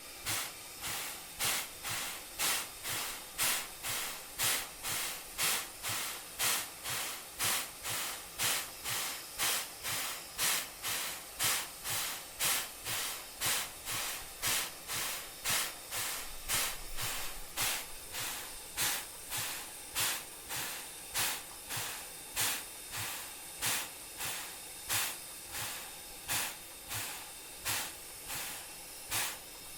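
Thomas the Tank Engine steam locomotive hissing steam in an even rhythm, about two hisses a second, each with a faint low thud underneath.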